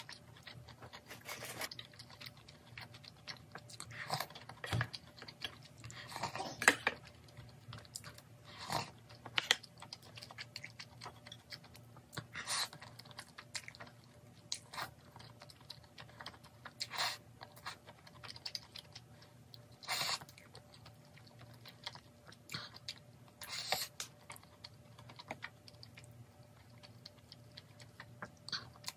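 Close-up eating sounds: slurping chewy spicy jjolmyeon noodles and chewing pork belly, in irregular wet smacks and clicks, with a faint steady hum underneath.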